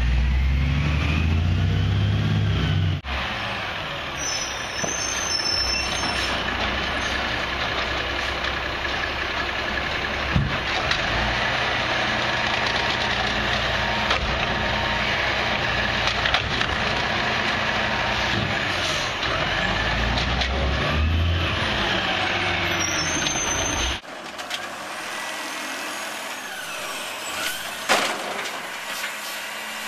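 Amrep automated side-loader garbage trucks on Peterbilt chassis: the diesel engine pulls away, then runs at raised revs while the hydraulic arm lifts wheeled carts and tips them into the hopper, with air brakes hissing. The sound changes abruptly twice between clips, and there is a sharp knock near the end as a cart is tipped over the hopper.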